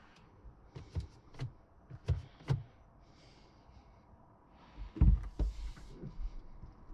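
Clicks and knocks from handling a Nissan Leaf's cabin: four short, sharp clicks in the first few seconds, then a heavier thump about five seconds in, followed by a few smaller knocks.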